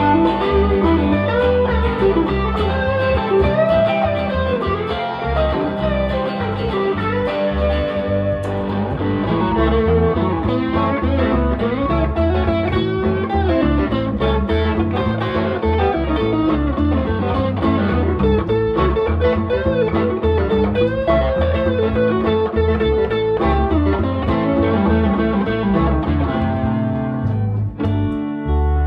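Live rock band playing an instrumental passage on electric guitar, bass guitar and a second guitar, with no singing. A lead line of sliding, bending guitar notes runs over the rhythm guitar and bass.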